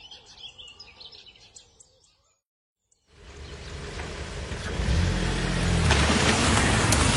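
Faint birdsong, then after a brief silence a car engine fades in about three seconds in and grows louder, running steadily as the car approaches.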